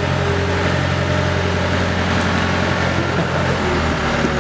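Skid-steer loader engine running steadily at a low hum, its note shifting slightly near the end.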